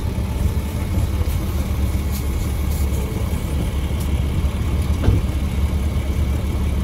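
IRONMAN Air Champ Pro 12V portable air compressor running with a steady low hum while inflating a tyre, with a single click about five seconds in.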